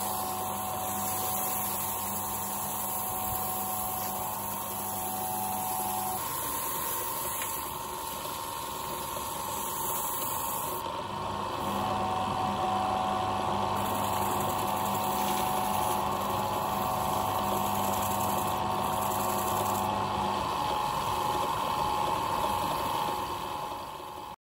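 Wood lathe motor running steadily, with sandpaper rubbing at times against the spinning wooden vase.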